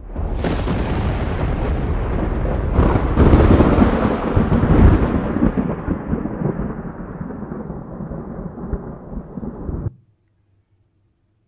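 Thunderstorm sound effect: a steady rushing noise, then a loud crack of thunder about three seconds in that rolls on and slowly fades before cutting off abruptly near the end.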